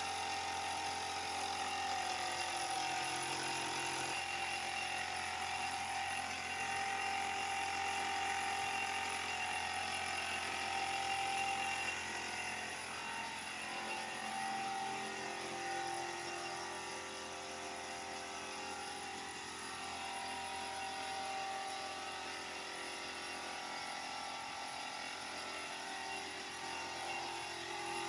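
Small electric air compressor running steadily, a constant mechanical hum that eases slightly about midway.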